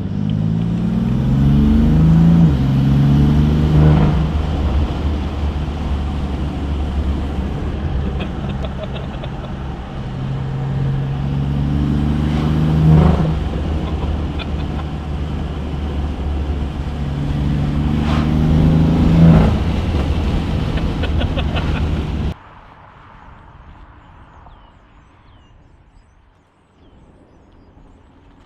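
BMW F80 M3's twin-turbo inline-six, breathing through a VRSF single midpipe with the secondary cats and mid resonator removed and the exhaust valves open, accelerating hard three times, the pitch climbing through each pull and ending in a short sharp crack. About 22 seconds in the engine sound cuts off abruptly, leaving faint background.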